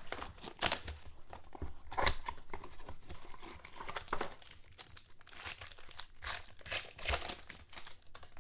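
A trading-card pack being opened by hand: its crinkly foil wrapper is torn and crumpled in irregular rustling bursts.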